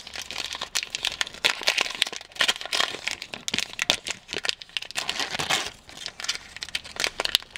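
Foil wrapper of a Pokémon trading-card booster pack crinkling in the hands as it is handled and opened, a dense irregular crackle of small clicks.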